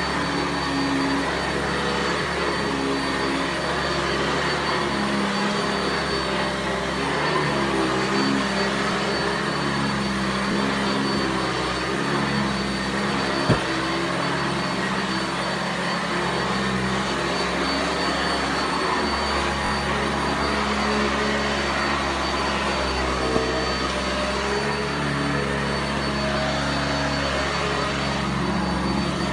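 Sanitaire SC679J commercial-grade upright vacuum cleaner running steadily while it is pushed back and forth over carpet. A single sharp click comes about halfway through.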